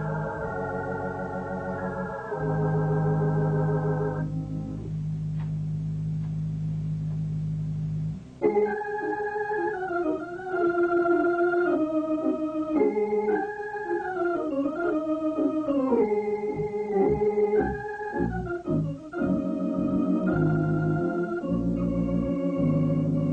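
Organ music: sustained chords over a held bass note, then, about eight seconds in, a moving melody line over chords.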